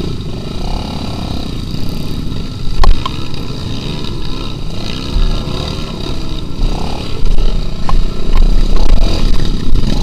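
Trail motorcycle engines revving up and down at low speed on a rough dirt track, with a few sharp knocks and rattles as the bike bounces over the ruts.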